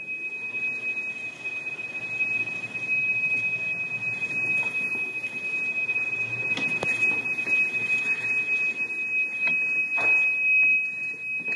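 Golf cart's reverse warning buzzer sounding as one steady, unbroken high-pitched tone while the electric cart backs into its parking bay, over a low rolling noise with a few faint knocks.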